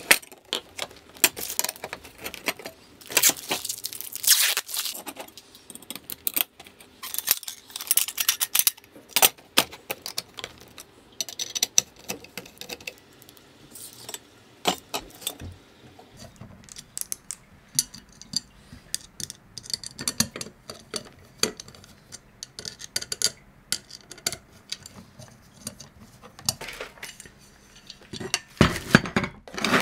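Irregular metallic clinks, clicks and short scrapes of aluminium plates, small screws and a screwdriver being handled and worked while a 3D printer kit frame is put together.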